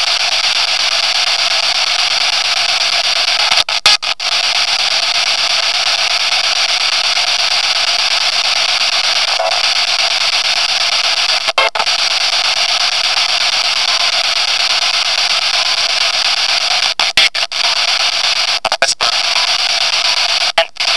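Loud, steady static hiss, with no pitch and no low end, broken by a few brief dropouts about four seconds in, midway, and several times near the end.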